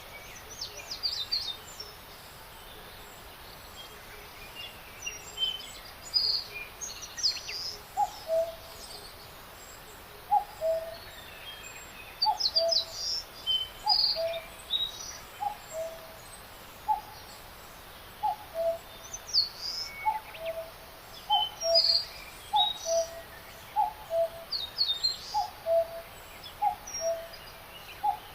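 Birds singing over a steady background hiss: scattered quick, high chirps and whistles. From about eight seconds in, a lower two-note falling call repeats roughly once a second.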